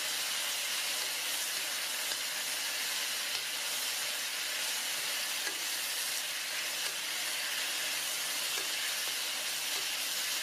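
Stir-fry sizzling steadily in an Aroma nonstick electric wok on high heat (450°F), the chicken, green beans and peppers being stirred with a wooden spatula, with a few faint taps now and then.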